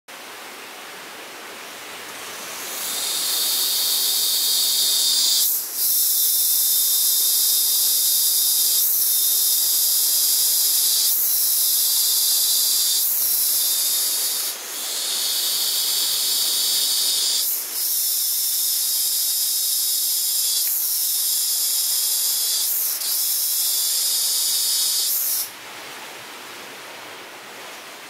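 Loud, high-pitched steady hissing buzz from an unseen animal, swelling in about three seconds in, dipping briefly a few times and cutting off suddenly near the end. The uploader was told it is frogs.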